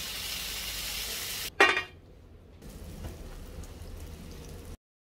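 Bacon slices sizzling in a nonstick griddle pan. A short, sharp metallic clink about a second and a half in is the loudest sound. Then comes a quieter sizzle of butter melting around slices of bread in the pan, and the sound cuts off just before the end.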